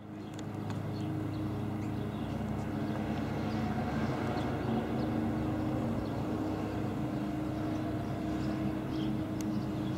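A steady low engine hum with a few faint ticks above it.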